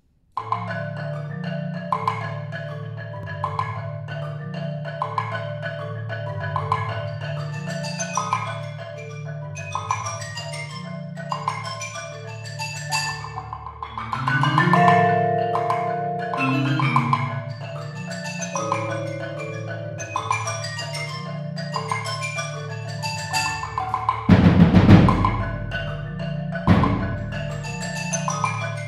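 Percussion quartet playing marimbas, low bass notes under repeating higher rhythmic figures. About halfway through comes a stretch of longer held notes stepping downward, and near the end two loud, deep strikes.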